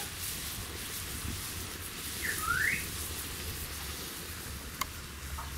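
Diced carrots and garlic frying in a pan over a wood-burning stove, a steady sizzling hiss. A single short rising chirp sounds a little past two seconds in, and a sharp tick near the end.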